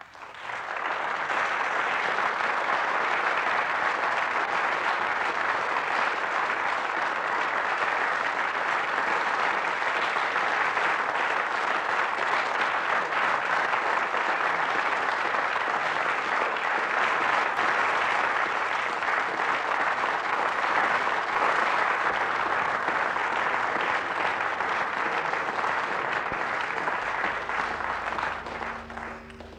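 Sustained applause, a dense even rush of clapping that fades in within the first second and fades out near the end.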